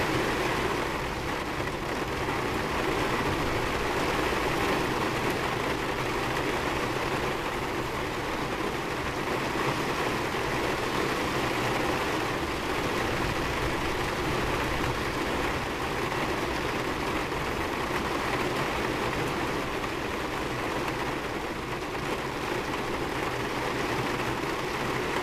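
Heavy rain falling on a car's roof and windshield, heard from inside the car as a steady, even rush of noise. A low steady hum runs underneath.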